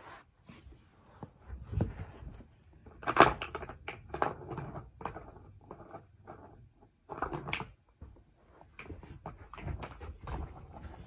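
Irregular knocks and plastic clatter from a plastic ball-track cat toy being handled and pawed, with the loudest knock about three seconds in.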